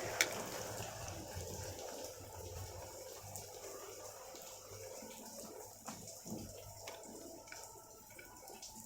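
Heavy rain hissing, with a sharp click just after the start. The rain fades over the first two seconds or so, leaving a quieter background with a few faint knocks.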